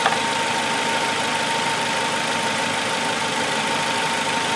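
Suzuki car engine idling steadily, with a thin steady high whine, running on a newly replaced ignition coil after a misfire. A couple of light clicks right at the start.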